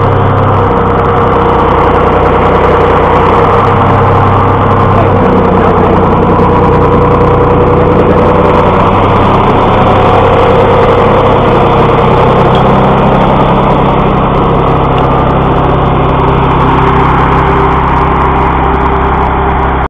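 A vehicle engine running steadily; its low hum steps in pitch a couple of times in the first few seconds, then holds.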